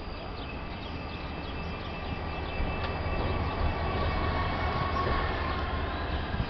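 Renfe class 334 diesel-electric locomotive propelling two coaches in reverse through a rail yard: steady engine rumble mixed with the noise of wheels rolling on the track, growing louder about two seconds in as the train comes closer.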